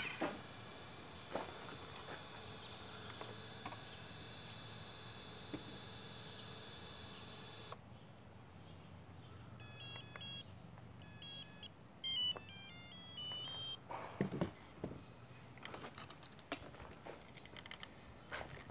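Hydraulic pump of an RC hydraulic excavator running with a steady high-pitched whine, cutting off suddenly about eight seconds in as the model is powered down. Then a series of short electronic beeps at changing pitches, and a few light knocks near the end.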